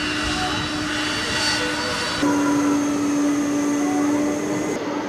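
Jet aircraft engines running with a steady whine over a rushing noise; the sound changes abruptly about two seconds in and again near the end, as between separate clips.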